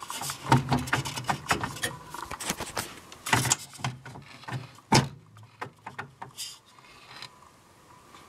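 Plastic clicks, rattles and knocks as the disc carousel of a Sony CDP-CX350 300-disc CD changer is worked loose and lifted out by hand, the sharpest knocks about half a second, three and a half and five seconds in.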